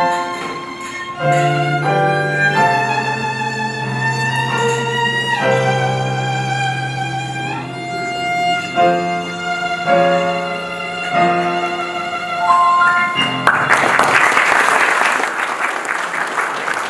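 Violin playing a slow melody of long held notes over a low sustained string bass line; the music ends about thirteen seconds in and the room breaks into applause.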